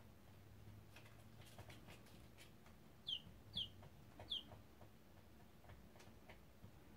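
Baby chick peeping: three short, high chirps, each falling in pitch, in quick succession about three to four seconds in.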